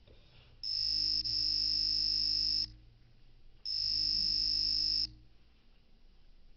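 Two long, shrill electronic buzzing tones, steady in pitch, the first about two seconds long and the second about a second and a half, each starting and stopping abruptly.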